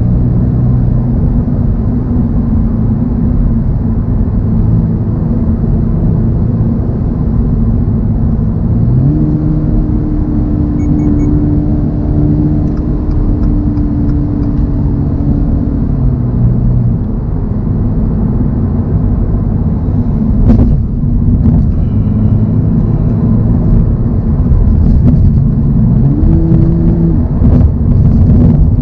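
2024 Toyota GR86's 2.4-litre flat-four boxer engine running at expressway speed, with road noise. Its note steps up about a third of the way in, holds for several seconds, drops back, and rises again near the end.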